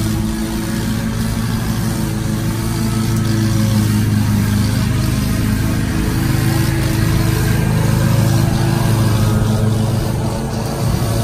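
Ferris Z1 36-inch stand-on mower's engine running steadily under mowing load, a constant low drone.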